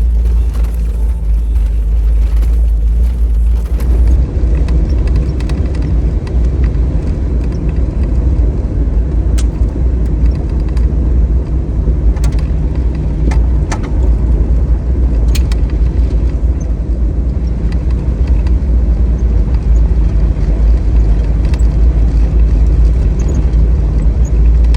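Jeep driving along a gravel road: a steady, loud low rumble of engine and tyres, with scattered clicks and rattles from stones and the vehicle.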